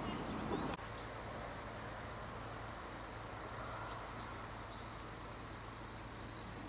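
Quiet outdoor ambience with small birds chirping high and intermittently, over a faint steady low hum. A louder stretch of background noise cuts off abruptly under a second in.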